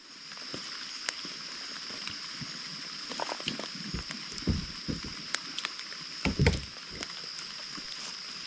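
Gear being loaded into a kayak: scattered knocks, thumps and rustling against the hull, loudest about six and a half seconds in, over a steady high-pitched hum.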